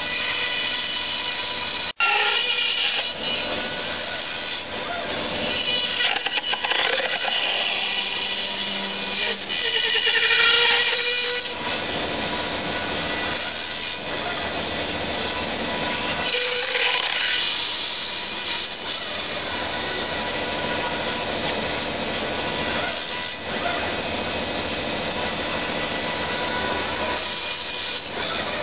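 CNC router spindle running with a steady whine while its long end mill cuts a curved channel into a foam pattern block. The cutting noise swells louder several times as the tool moves through the foam.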